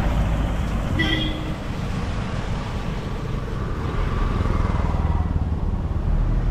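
Road traffic: vehicles running past with a steady low rumble, and a short high-pitched tone about a second in.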